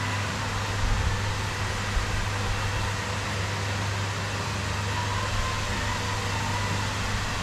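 Steady electric hum with an even hiss over it, unchanging throughout.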